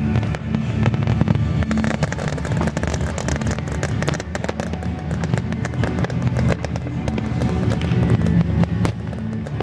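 Fireworks display firing without a break: dense crackling and sharp pops from rising comets and bursting shells, over music played to accompany the show.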